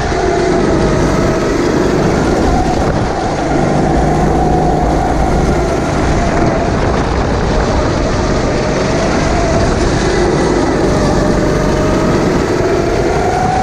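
Go-kart engine running hard, heard from onboard, its pitch rising and falling a little as the driver works the throttle through the corners, over steady wind and road rush.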